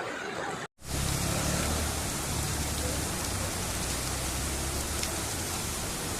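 Steady hiss of heavy rain falling, after a brief cut to silence under a second in; a low rumble sits under it for a second or two after the cut.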